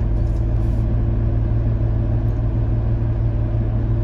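A car's engine idling steadily with the car held still: an even, unchanging low hum.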